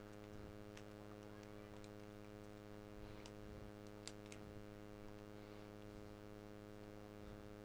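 Near silence: a faint steady electrical hum, with a few faint clicks, one about four seconds in.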